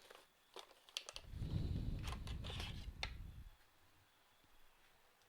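Computer parts and packaging being handled at a workbench: a few sharp plastic clicks and taps, with a low rumbling handling noise from about a second in to past the middle.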